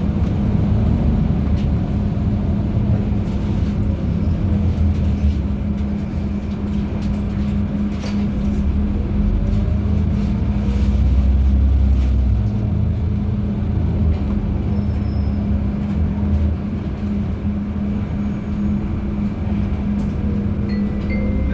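LiAZ-5292.71 natural-gas city bus running, heard from on board: a steady low engine and drivetrain hum with road rumble, and a whine that rises and falls in pitch as the bus speeds up and slows.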